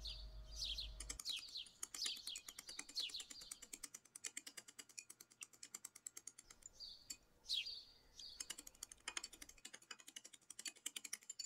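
Chopsticks clicking rapidly against a glass bowl while beating two raw eggs, a quick run of light ticks. High, falling chirps sound over it several times.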